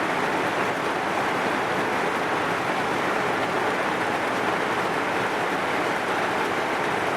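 Heavy rain falling steadily, an even unbroken hiss and patter.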